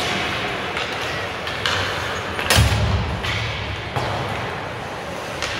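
Youth ice hockey play in an indoor rink: skates scraping and sticks clicking on the ice, with one loud thud about halfway through and a few lighter knocks.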